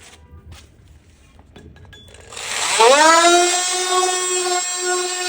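Faint taps, then about two seconds in an electric power tool's motor spins up with a quick rising whine and runs at a steady high pitch.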